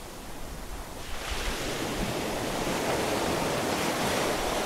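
Sea waves breaking and washing up a sandy shore, the surf swelling about a second in, with wind on the microphone.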